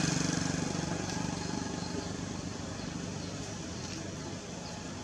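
A motor engine fading away, then steady outdoor background noise with faint, short high chirps repeating near the end.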